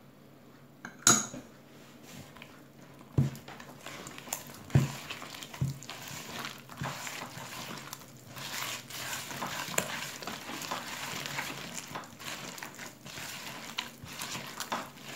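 A hand squeezing and kneading soft butter-and-sugar sablé dough in a plastic bowl while working in a freshly added egg. A few sharp knocks sound in the first six seconds, then a steady sticky mixing noise with small clicks continues.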